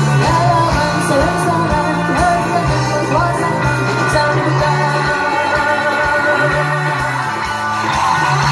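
Live rock band playing through a PA: a singer over electric guitars, bass and drums, with a steady beat and sustained bass notes.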